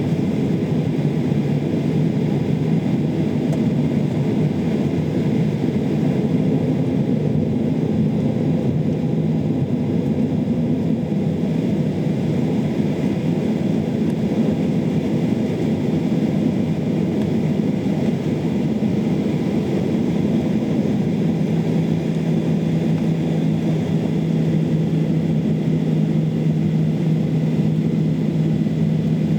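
Jet airliner cabin noise on the ground: a steady engine and airflow rumble, with a low steady hum coming in about two-thirds of the way through.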